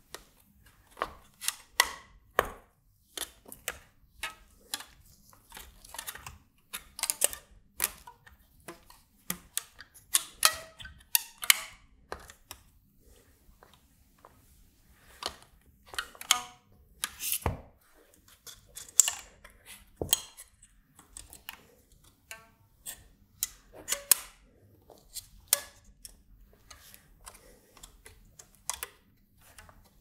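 Irregular clicks, taps and knocks of an IMSAI kit's front panel being handled: toggle switches and the acrylic plate that holds them being pressed and nudged into line under elastic bands.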